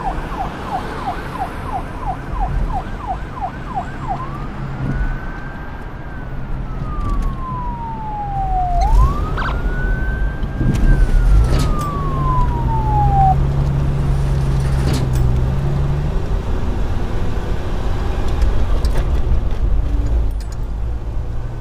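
Police siren sound effect: a fast yelp of about three rising sweeps a second, switching about four seconds in to a slow wail that rises and falls twice and stops about two-thirds of the way through. A steady low rumble runs underneath.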